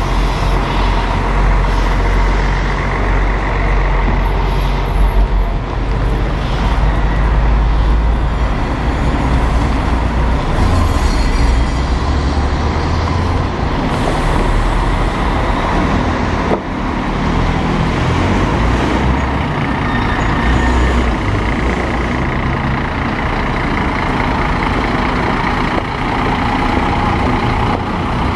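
Scania diesel engine of a Busscar Panorámico DD double-decker coach running at low speed as the coach moves slowly past and away, a steady low rumble. A couple of short hisses of air come about halfway through.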